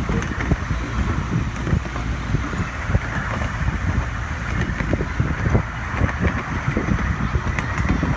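Miniature ride-on train's open cars rolling along their narrow-gauge track: a steady rumble of wheels on rail with frequent small irregular clacks and rattles, with wind on the microphone.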